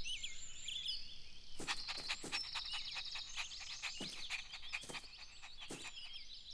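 Outdoor garden ambience of birds chirping and twittering, with a steady high trill from about one second in to about three seconds and a few light taps scattered through it.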